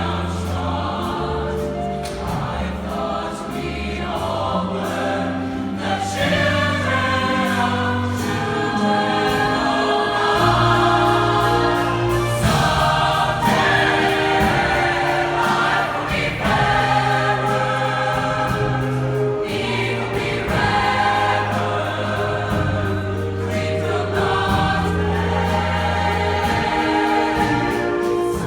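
A choir singing in harmony over musical accompaniment with sustained low notes that change every few seconds.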